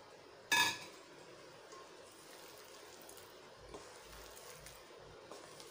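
A single short ringing clink about half a second in, then faint soft sounds of idli pieces being mixed by hand through a thick spice batter in a stainless steel bowl.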